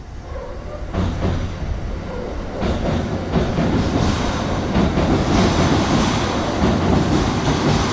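Kintetsu electric train passing, its running noise growing louder from about a second in. Its wheels clack over the rail joints again and again.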